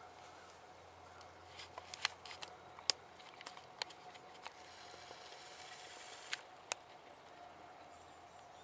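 About a dozen faint, sharp clicks and light rustles of handling close to the microphone, scattered over a few seconds with the loudest two near the middle, over a faint steady hum.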